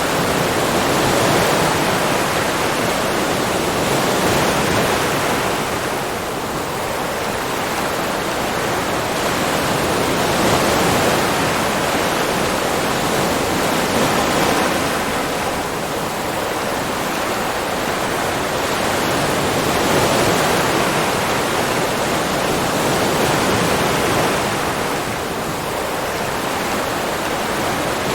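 Ocean waves: a continuous wash of surf that swells and eases slowly, about every nine to ten seconds.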